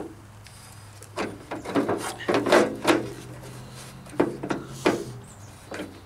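Metal door latch assembly knocking and scraping against the steel shell of a Jeep Wrangler YJ half door as it is worked into place, a series of irregular clanks. A low steady hum runs underneath and stops about five seconds in.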